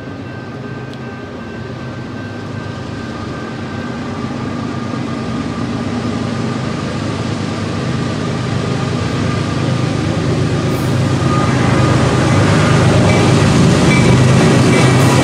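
CSX GE ES44AC diesel-electric locomotives leading a mixed freight train approach, their engine rumble growing steadily louder throughout.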